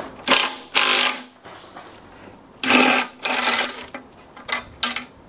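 Cordless impact driver running in several short bursts, buzzing and rattling as it works a bolt on the mower engine's carburettor and fuel tank, loosening it to take the tank off.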